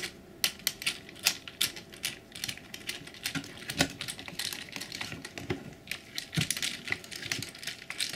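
Irregular small clicks, ticks and scrapes of a screw being fitted and turned at the pistol grip and stock of a Mossberg 500 shotgun, hard metal and plastic parts knocking together under the hands, a few clicks a second.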